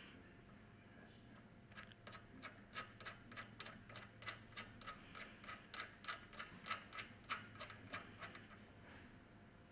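Faint, quick metallic ticking, about four clicks a second for several seconds, as a loosened steel hex screw is turned out of the pump's shaft seal cover by hand.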